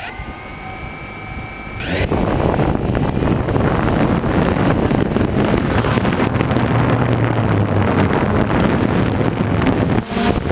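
DJI Phantom 1 quadcopter's motors spinning up with a rising whine, then about two seconds in a sudden jump to a loud steady rush of propeller wash and wind buffeting the microphone of the drone-mounted camera, with a brief dip near the end.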